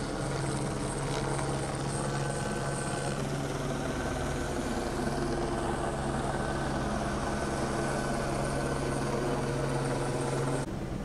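Sheriff's helicopter overhead, its rotor running with a steady drone; the sound cuts off abruptly near the end.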